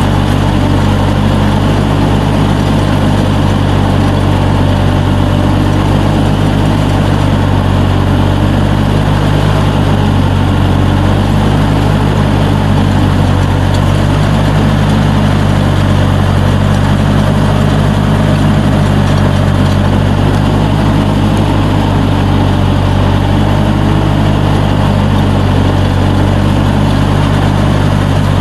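Riding lawnmower engine running loud and steady at a constant pitch.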